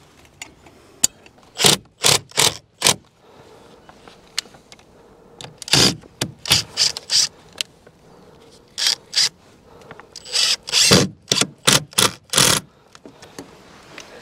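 Makita 18 V cordless drill boring into the timber of a log wall in short trigger bursts, grouped in clusters, with pauses between. The holes are drilled into the cracks and log joints so that they can be plugged with sealant.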